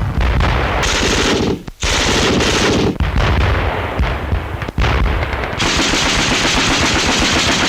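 Machine-gun fire in long, rapid bursts, with a short break just under two seconds in.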